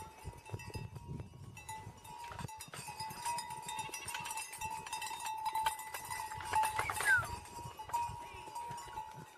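Bells on a herd of goats clanking and ringing as the goats walk past, busiest and loudest about two thirds of the way through.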